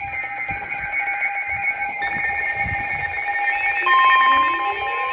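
Weather alert radio alarm announcing an incoming Emergency Alert System warning: several steady electronic tones sound together. About four seconds in, a further steady tone just above 1 kHz joins them: the NOAA Weather Radio warning alarm tone.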